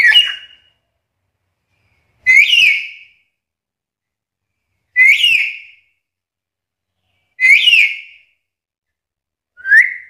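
Black-capped lory giving five short, loud, whistle-like calls, one about every two and a half seconds, each a quick slur that rises and falls in pitch.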